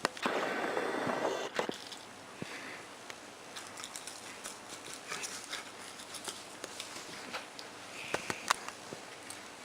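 A person eating chicken nuggets: a loud breathy puff of about a second near the start, then faint scattered clicks and small wet mouth noises of chewing.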